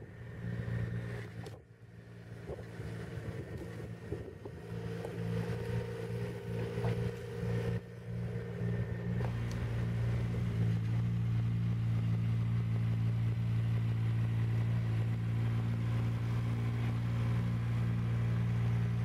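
Engine of a tracked mini excavator with a dozer blade running steadily, dipping briefly early on. It grows louder and steadier about ten seconds in.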